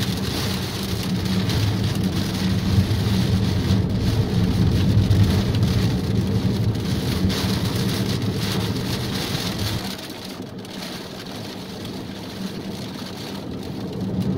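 Heavy rain drumming on a car's roof and windshield, heard from inside the cabin over the low rumble of the car driving on a wet road. About ten seconds in, the rumble and the rain noise drop off noticeably.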